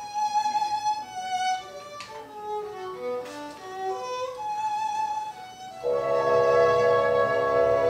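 Solo violin playing a slow, wandering melody in the opera's orchestral accompaniment, one note at a time. About six seconds in, fuller accompaniment enters and holds a louder sustained chord under it.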